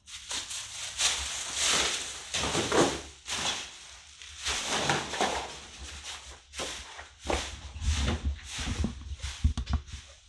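Footsteps walking over a hard floor, irregular steps about one or two a second, with a quick run of sharper knocks and clicks near the end.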